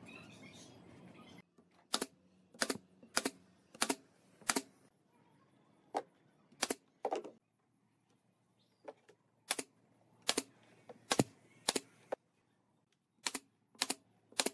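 Pneumatic brad nailer firing brads into a pine trim strip: about fifteen sharp snaps in quick groups of two or three, after a short rustle at the start.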